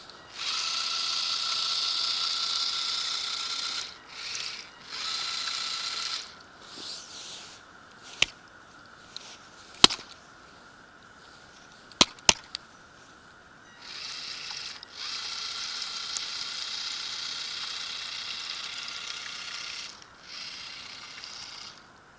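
Small electric motors whining in runs of a few seconds, switched on and off several times, with a handful of sharp clicks in a pause about halfway through.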